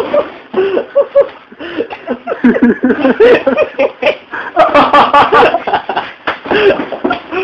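Two people wrestling on a floor: repeated bumps and scuffles of bodies hitting the floor, with excited voices and laughter without clear words.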